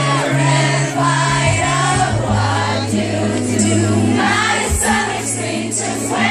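Live pop music over loud concert speakers, with many voices singing together along with it.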